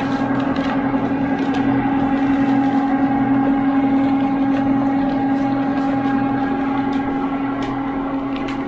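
Sugarcane crusher running with a steady mechanical hum while cane stalks are fed through its rollers and crushed, with a few short sharp cracks along the way.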